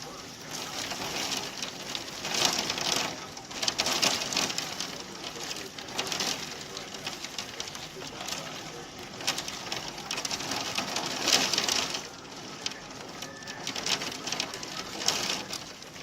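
Pea-size hail pounding on a greenhouse: a dense clatter of small impacts that swells and eases in waves.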